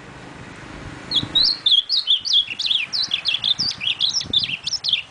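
Male ultramarine grosbeak (azulão) singing in its cage. It gives a fast, varied phrase of whistled notes that starts about a second in and runs for about four seconds.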